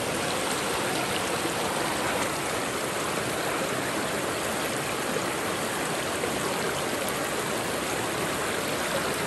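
River water rushing steadily through and around a plastic sluice box held in the current.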